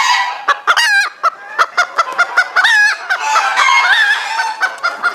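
Hen clucking and cackling: a quick run of short, pitched calls.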